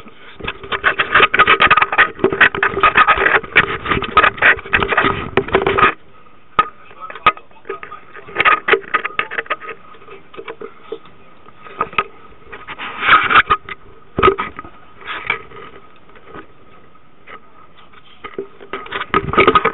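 Handling noise from a loosely held compact waterproof camera rubbing and knocking against dive gear, in several bursts, over a steady hum from the dive boat's engine.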